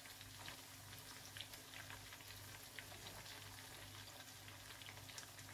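Sliced onions frying in oil in a pan: a faint, steady sizzle with many small scattered crackles, over a low steady hum.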